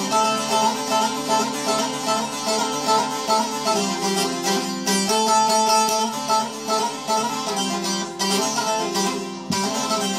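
Bağlama (long-necked Turkish saz) played solo: a quick plucked melody over steady ringing low notes, forming the instrumental interlude between verses of a Turkish folk song.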